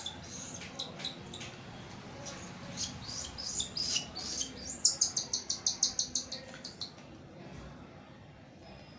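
Baby cockatiel chick squeaking and chirping as it takes hand-fed formula from a syringe: scattered high chirps, then a quick even run of about ten rapid squeaks past the middle, which then stop.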